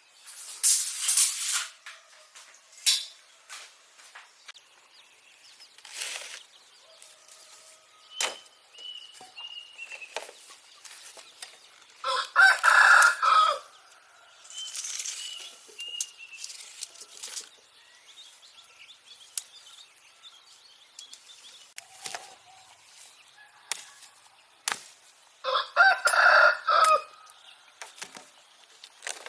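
A rooster crowing twice, once about halfway through and once near the end, with scattered short knocks and clicks between the crows.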